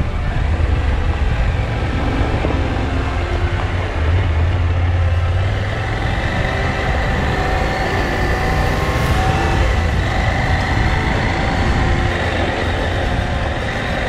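KTM 790 Adventure R's parallel-twin engine running steadily as the motorcycle rides along a gravel track, with tyre and wind noise.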